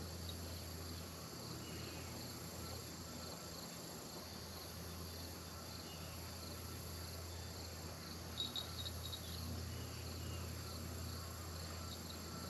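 Steady insect chorus, an even high-pitched buzz, over a low steady hum. A short run of faint clicks comes about two-thirds of the way through.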